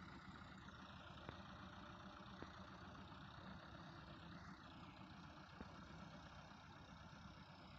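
Faint, steady running of the diesel engines of two tractors under load: an orange Ghazi hitched in front of a red Massey Ferguson 385 to help it haul a heavily loaded sugarcane trolley.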